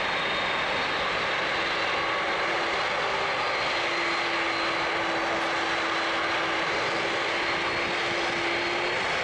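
McDonnell Douglas MD-11F trijet freighter's jet engines running at low taxi power as the aircraft rolls along the taxiway: a steady rush with a thin high whine, holding level throughout.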